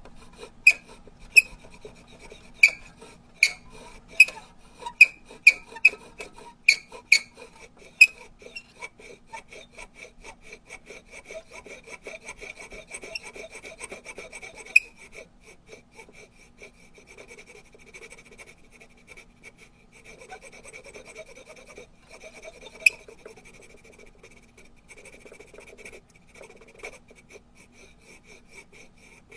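Rubber duck squeaked over and over: about a dozen sharp, high squeaks in the first eight seconds. Then comes a fast, rasping run of rapid squeaks at the same pitch, broken by two more sharp squeaks about fifteen and twenty-three seconds in.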